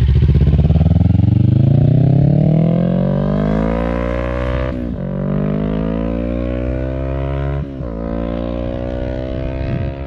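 Kawasaki Ninja 400's parallel-twin engine through a LeoVince Factory S stainless-steel full exhaust, accelerating hard from a standstill. The revs climb, then drop and climb again at two upshifts about five and eight seconds in. The sound fades as the bike rides away.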